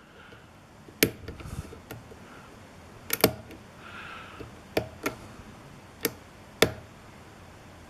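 Sharp, sparse metal clicks of lock picks and a tension wrench working the pins of a spool-pinned pin-tumbler challenge lock, about seven clicks spaced irregularly a second or so apart.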